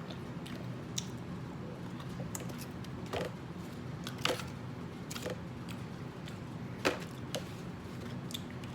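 Close-up eating sounds of french fries being chewed: short, sharp mouth clicks and smacks about once a second, over a steady low hum.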